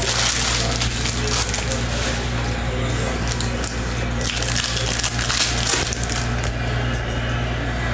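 Plastic wrapper of a Panini NBA Hoops trading-card pack crinkling and crackling in irregular bursts as it is handled close to the microphone, along with cards being shuffled, over a steady low hum.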